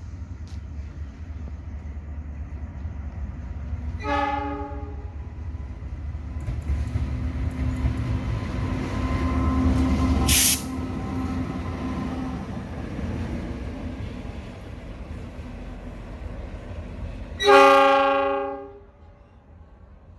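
Train horn sounding twice, with a short blast about four seconds in and a longer, louder blast near the end. In between, the low rumble of a train on the rails builds, then drops suddenly after a brief hiss about ten seconds in.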